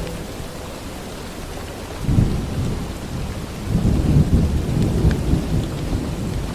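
Rain-and-thunder sound effect: steady rain hiss with low thunder rumbles, a short one about two seconds in and a longer rolling one from just past the middle.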